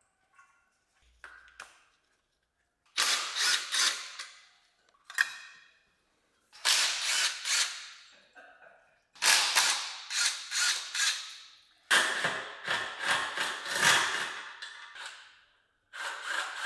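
Cordless impact driver on the underbody panel screws, running in a series of short bursts of rapid sharp clicks, each one to three seconds long, with a steady motor whine under some of them.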